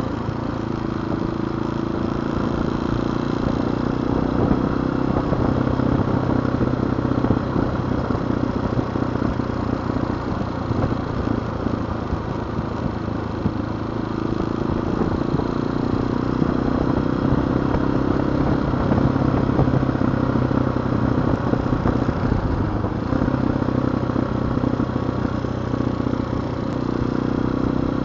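Tao Tao TBR7 motorcycle engine running steadily while the bike is ridden along a paved road, with a rush of wind and road noise.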